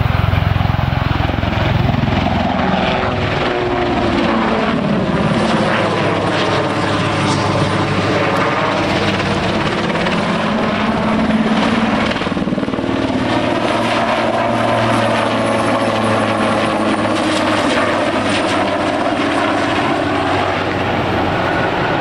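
AS.332 M1 Super Puma helicopter flying a display overhead: a loud, steady noise of its main rotor and twin turboshaft engines. The tone sweeps down and back up as it manoeuvres and moves past.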